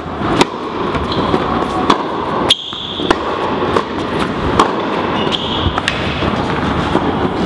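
Tennis ball being struck by rackets and bouncing on an indoor hard court during a rally: sharp pops about every half second to a second, over a steady background noise.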